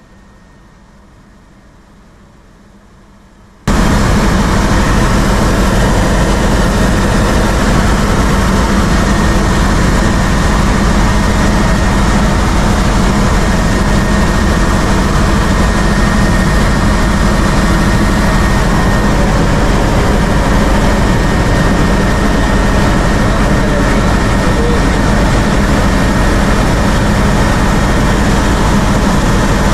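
Helicopter engine and rotor noise heard from inside the cabin: a loud, steady drone with a faint high whine, cutting in abruptly about four seconds in after a quiet start.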